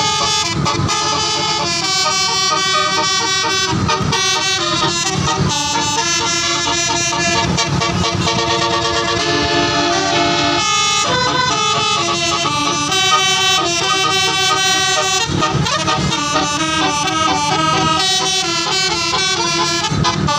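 Bus telolet horn playing a continuous melody of several tones at once, the notes changing in quick steps.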